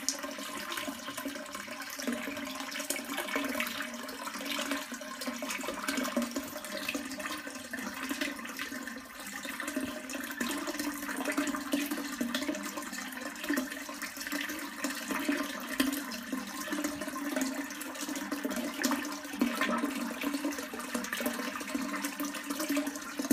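Flushed toilet with water running steadily into the bowl: a continuous rush of water that does not break or fade.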